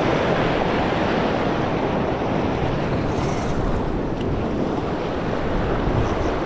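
Sea surf washing against shoreline rocks, with wind buffeting the microphone.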